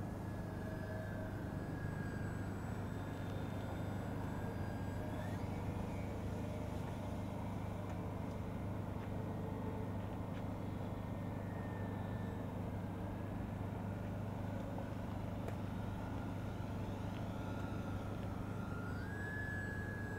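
Twin electric motors and propellers of a Dynam Grand Cruiser RC model plane whining in flight, the pitch drifting with throttle and distance and rising near the end as it comes in for a low pass, over a steady low rumble.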